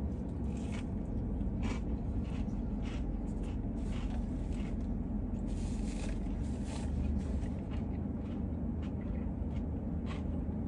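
Chewing of a crunchy fried chicken sandwich: faint, irregular crunches over a steady low hum. A paper napkin rustles briefly about halfway through.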